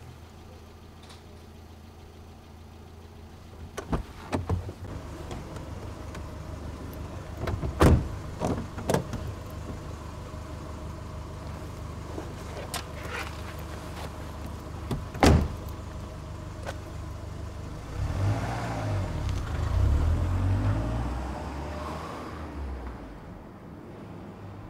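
Car doors opening and shutting over a car engine running low, with two loud door slams about 8 and 15 seconds in. Near the end the engine grows louder for a few seconds as the car pulls away, then fades.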